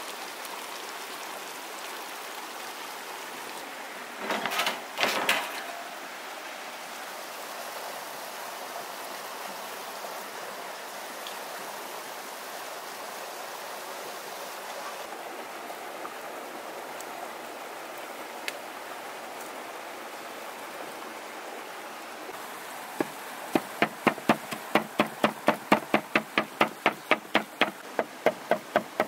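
Steady rush of flowing river water throughout, with a couple of brief louder noises about four to five seconds in. Near the end, a cleaver chops rapidly on a wooden board, about four strokes a second, cutting up charred tomatoes and onions.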